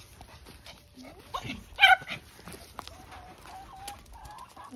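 A dog barking once, loud and sharp, about two seconds in, followed by quieter drawn-out whining calls.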